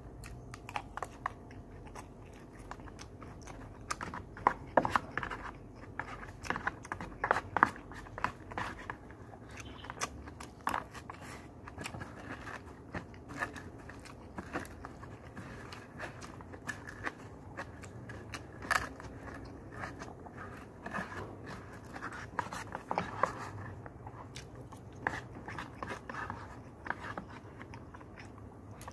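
Close-up chewing and biting of rice and fried pork chop, with frequent sharp clicks and scrapes of a metal spoon against the lunch box and its lid.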